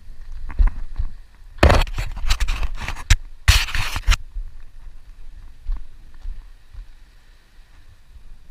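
Shoes scuffing and scraping on rough rock while someone climbs down, with two louder stretches of scraping, about two seconds and three and a half seconds in, then lighter scattered steps.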